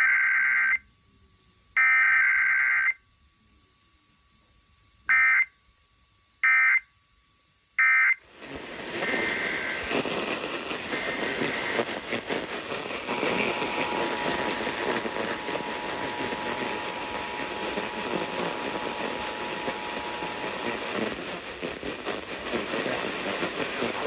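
Emergency Alert System SAME header data bursts, two harsh warbling digital squeals about a second long, then three short end-of-message bursts, with no attention tone between them. After about eight seconds a steady rushing static-like hiss takes over, with a faint steady tone in it for a while.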